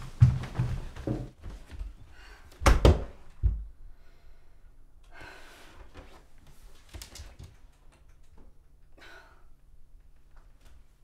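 Footsteps thudding along a hallway, then a door slammed shut hard about three seconds in, followed by a smaller thud; after that only faint rustles.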